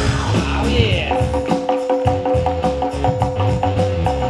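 Loud DJ music for the battle, with a heavy bass beat. About a second in, a held note and a quick, even run of short higher notes come in over the beat.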